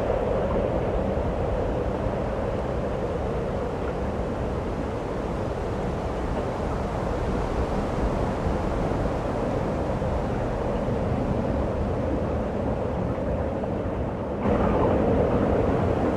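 Steady snowstorm wind blowing, an even rushing noise that jumps a little louder near the end.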